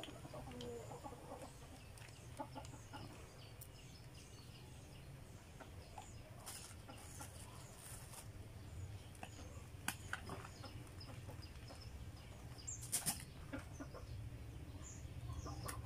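Faint clucking of domestic fowl in the background over a low steady hum, with a few short sharp sounds about a third of the way in, in the middle and near the end.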